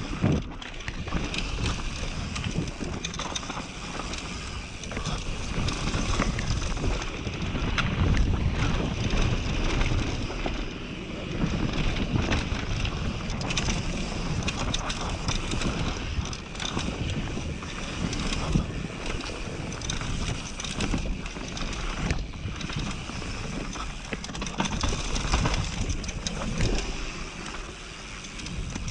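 Mountain bike descending a dirt trail at speed: wind rushing over the camera microphone, tyres rolling over dirt and loose rock, and frequent clattering knocks from the bike over bumps.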